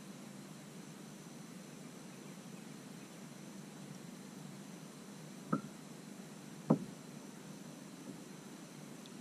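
Quiet steady background hiss, broken just past the middle by two sharp knocks a little over a second apart, the second louder.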